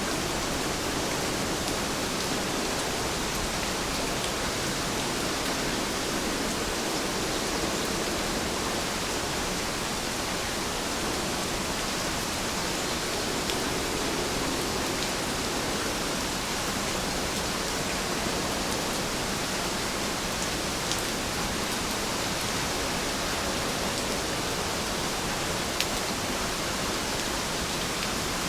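Heavy rain falling steadily in a dense, even hiss, with a few faint drop ticks standing out now and then.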